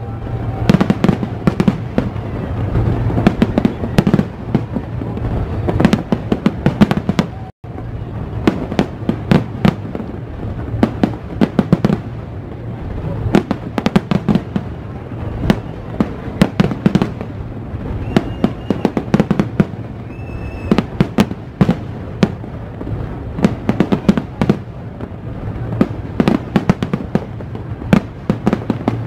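Aerial firework shells bursting in a dense, continuous barrage, many loud bangs a second with irregular spacing, with one brief break about seven and a half seconds in.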